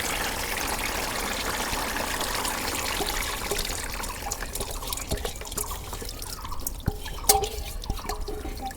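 Water running and trickling out of soaked rice as it is drained, thinning after about five seconds to scattered drips, with a few light clinks near the end.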